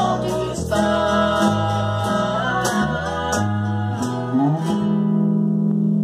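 Two nylon-string classical guitars strummed with a man and a girl singing together. Near the end they settle on one long held chord.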